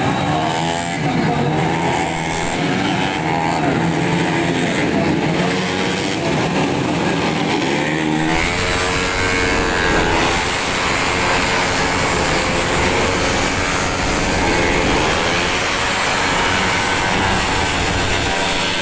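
Several tuned automatic scooter engines racing at high revs, their pitches rising and falling and overlapping as the bikes accelerate and pass. About eight seconds in, the sound takes on a deeper rumble.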